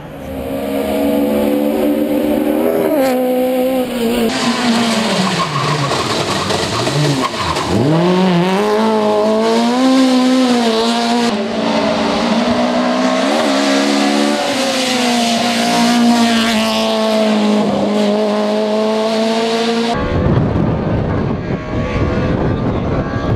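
Rally car engines at full throttle, the engine note climbing and dropping sharply with gear changes and lifts, across several spliced-together passes. The engine note stops abruptly near the end, leaving a rushing noise.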